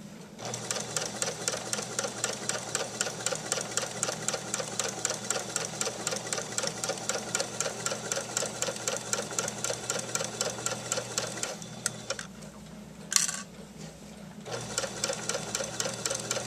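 Electric sewing machine stitching a seam, a fast even clatter of the needle mechanism. It stops for about two and a half seconds, with one sharp click in the pause, then starts stitching again.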